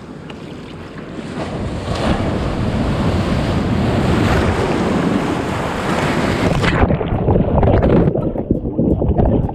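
A breaking wave sweeps over a kayak in the shore break: a rush of surf builds and fills the microphone, then about seven seconds in the sound turns abruptly muffled as the microphone goes under the water, leaving churning water and knocks as the wave capsizes the kayak.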